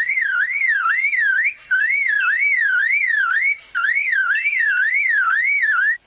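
Male superb lyrebird mimicking a car alarm: a loud whistled wail that rises and falls about two to three times a second, in three runs with brief breaks about one and a half and three and a half seconds in.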